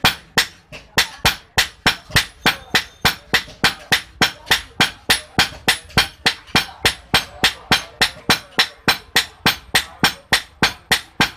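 Hand hammer beating a steel boti chopper blade on an anvil block: a steady rhythm of about four sharp, ringing metal-on-metal blows a second.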